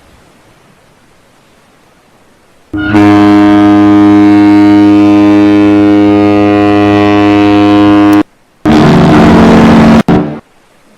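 Cruise ship horn sounding one long, loud, steady blast of about five seconds starting about three seconds in, then a second, shorter blast of about a second and a half after a brief break.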